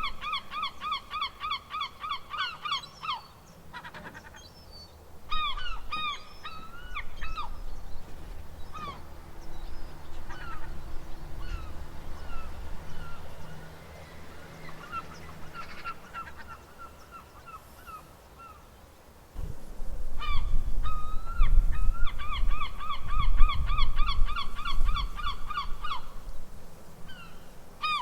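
Gulls calling: fast runs of repeated, laughing call notes several a second, with scattered single squawks in between. A low rumble joins about two-thirds of the way through, under a second run of calls.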